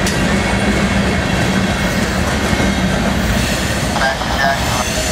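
Freight cars of a CSX train rolling past close by: a steady rumble and rattle of steel wheels on the rails, with a thin high wheel squeal running through it.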